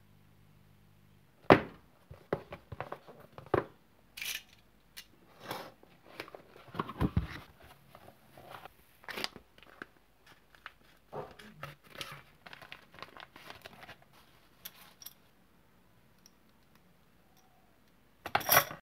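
Plastic packaging crinkling and tearing as a parcel bag of circuit boards is handled and opened, in an uneven run of sharp crackles, with a louder burst of rustling packing near the end.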